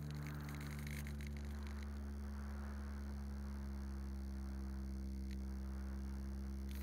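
Steady hum with several fixed pitches from the Flex Innovations RV8's electric motor and propeller in cruising flight, picked up by the onboard camera. A few faint clicks sound near the start and again at the very end.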